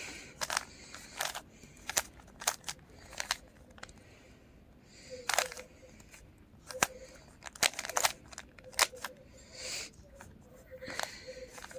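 Rubik's Cube being turned rapidly by hand, its plastic layers clicking and clacking in quick, irregular turns.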